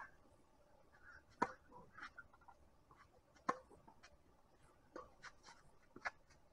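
Tennis ball struck by rackets and bouncing on a hard court during a serve and rally: faint sharp pops every one to two seconds, the strongest about a second and a half in and again about two seconds later.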